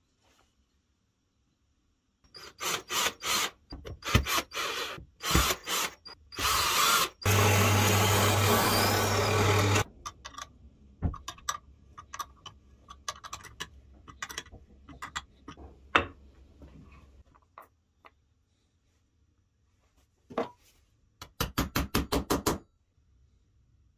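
Knocks and taps on wood and metal, then a small handheld power tool runs for about two and a half seconds near the middle, with scattered clicks after it. Near the end a small hammer taps about ten times in quick succession, driving a metal part into a wooden knob.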